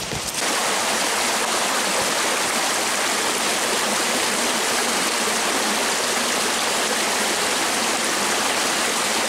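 Small rocky stream rushing over a low ledge and riffle close by: a steady, even rush of water that comes in abruptly about half a second in.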